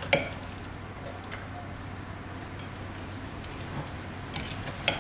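A spoon stirring a potato-and-pea samosa filling in a glass bowl, with a few sharp clicks against the glass, the last and loudest near the end. Under it runs a steady rush of wind and rain coming in through an open window.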